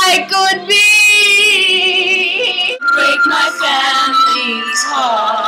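A woman belting loudly in a theatrical power-ballad style, holding long wavering notes. The singing breaks off briefly about three seconds in, then resumes.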